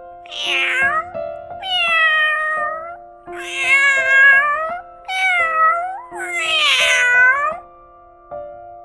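A domestic cat meowing five times, each meow about a second long and bending in pitch, over soft background music with steady held notes.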